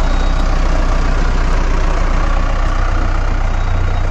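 Tractor diesel engine running steadily at close range, a low, even engine hum with no revving.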